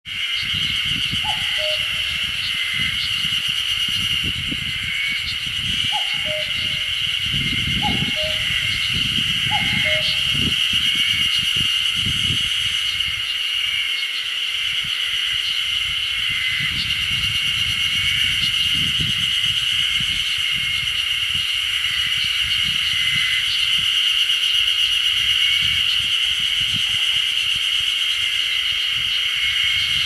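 A chorus of Ezo-haruzemi spring cicadas (Terpnosia nigricosta) drones high and steady throughout. Over it a common cuckoo gives its two-note falling "kak-koo" call four times in the first ten seconds.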